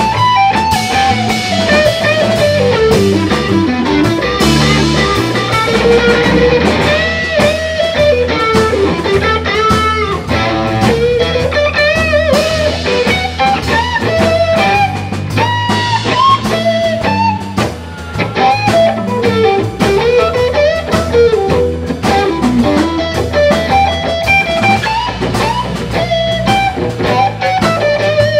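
Live band music: a Fender electric guitar plays a lead solo whose bent notes glide up and down, over bass guitar and a drum kit.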